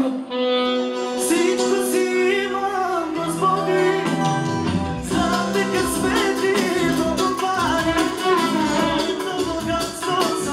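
Music starting up: long held chords for the first few seconds, then a steady beat with percussion joins about five seconds in, with a melody over it.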